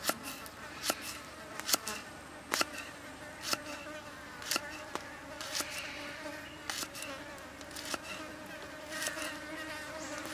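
A knife blade knocks on a wooden chopping block, roughly one cut a second, as onion and garlic are sliced. Under it runs a steady buzzing of flying insects.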